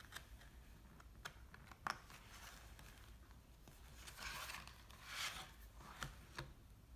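Faint handling of a thick cardboard board book: a few light taps, then two soft swishes about four and five seconds in as the stiff pages are turned and the book is closed, and two more light taps near the end.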